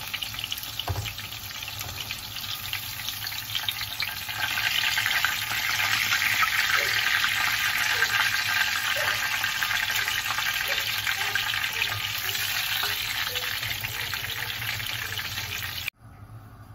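Breaded chicken schnitzel shallow-frying in hot oil in a frying pan: a steady sizzle full of small crackles, louder from about four seconds in, cutting off abruptly near the end.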